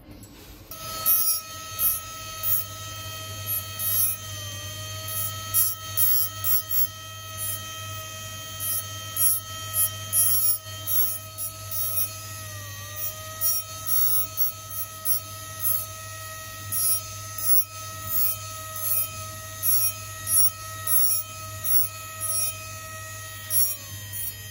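Jeweller's rotary handpiece hand-cutting a design into gold chain links. The motor starts about a second in and runs with a steady whine that dips in pitch briefly twice and winds down near the end. Over it come repeated short, scratchy bursts of the bit cutting the gold.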